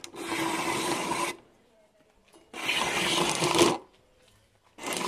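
A PET plastic bottle being cut into a strip on a handheld adjustable bottle cutter: three pulls of about a second each as the plastic is drawn past the blade, with pauses in between.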